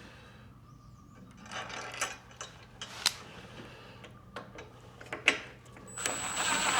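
Scattered metallic clicks and clinks of hand tools and hardware as a hitch mounting bolt is taken out and started back in. Near the end comes about a second of dense, rapid mechanical clicking.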